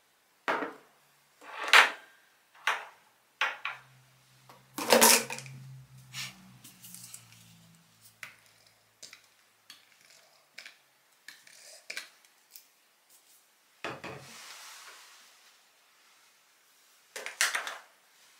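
Utensils and dishes clinking and scraping in a series of separate sharp knocks, with a longer scrape about two-thirds of the way through.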